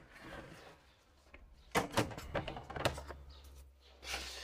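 A cluster of short knocks and clicks, with a short rustle near the end: objects being handled and set down while working on the fern.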